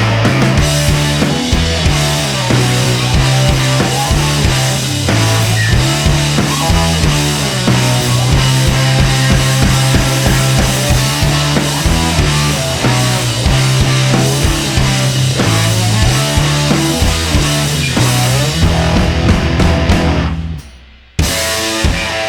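Music with drums and a heavy, stepping bass line. It fades out about 20 seconds in, and a new passage starts abruptly about a second later.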